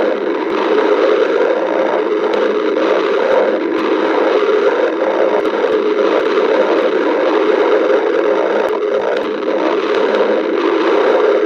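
A person's stomach growling: a steady, unbroken rumbling gurgle with small clicks scattered through it.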